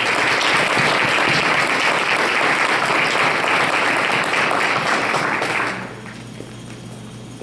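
Audience applauding for about six seconds, then stopping.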